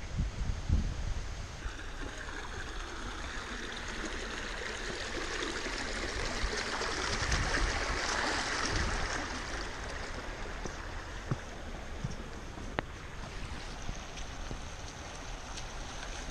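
Creek water rushing and gurgling over rocks, a steady wash that swells to its loudest about halfway through as the walker steps across the stream. A few heavy footfall thumps come at the start, and there is one sharp click later on.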